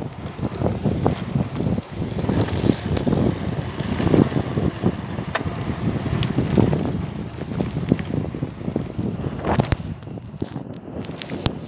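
Mountain bike rolling over a dirt road, its tyres rumbling on the rough earth and the frame and handlebars rattling, with occasional sharp knocks over bumps. Wind buffets the microphone.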